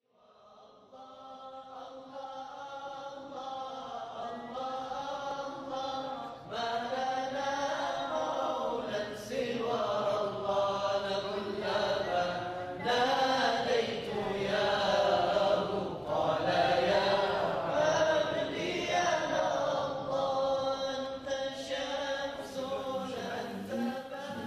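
Vocal chanting of a slow devotional melody, with long held notes that bend and glide, fading in from silence over the first couple of seconds.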